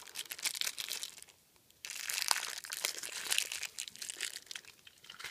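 Clear plastic packaging bag crinkling in the hands as the radio's belt clip is unwrapped. It comes in two spells, with a brief pause about a second and a half in, and the second spell is louder.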